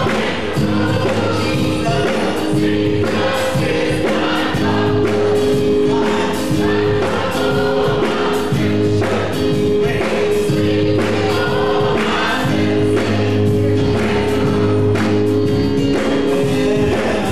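Gospel choir singing, accompanied by keyboards and drums, with sustained chords and a steady beat.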